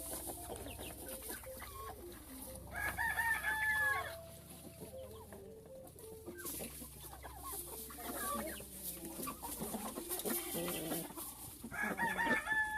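A rooster crowing twice, once about three seconds in and again near the end, each crow about a second long and ending in a falling note. Hens cluck on and off in between.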